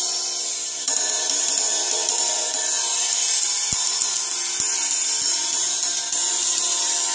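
Ride cymbal fitted with a homemade brass-bead sizzler, ringing under a bright, hissing sizzle that spreads out its ping. It is struck afresh about a second in and again near the end.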